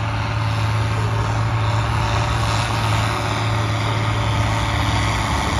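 Deutz-Fahr AgroStar tractor's diesel engine working hard as it drags a weight-transfer pulling sled, a steady low drone with no change in pitch.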